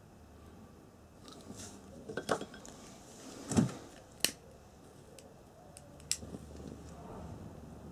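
Small metal objects being handled around a camping lantern: a few separate clinks and knocks, the loudest about three and a half seconds in, then lighter clicks about six seconds in.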